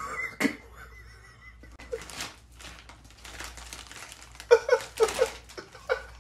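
Crinkly plastic snack bag rustling and crackling as a cat with its head stuck inside it moves about. A person laughs briefly in quick pulses late on, the loudest sound here.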